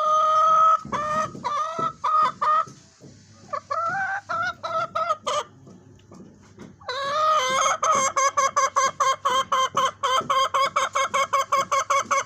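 Hen vocalising: a drawn-out call, then a string of clucks and a rising call, and after a short pause another long call running into a fast, rhythmic cackle of about five notes a second.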